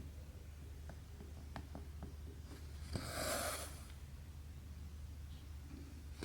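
Embroidery thread drawn through cross-stitch canvas, one short hissing swish of the pulled strand about three seconds in, with faint ticks of the needle piercing the fabric before it. A low steady hum lies underneath.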